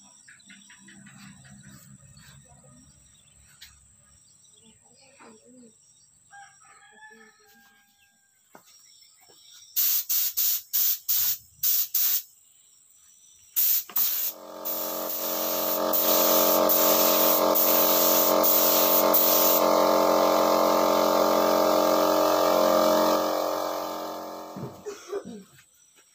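Compressed-air paint spray gun fired in a quick series of short blasts, then an air compressor running for about ten seconds with a steady hum and a hiss of air before it winds down and stops.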